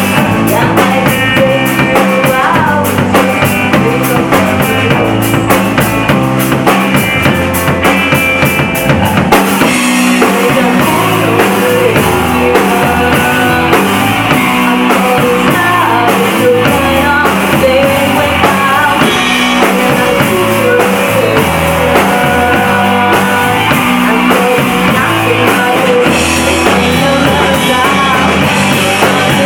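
Live rock band playing loud, with drum kit, electric guitar and singing. The drums are most prominent for the first third, then the sound thickens into a fuller wash.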